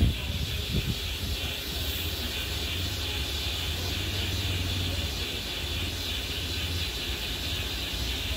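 LNER Gresley Pacific steam locomotive hissing steadily as steam escapes, over a steady low rumble, with a couple of knocks in the first second.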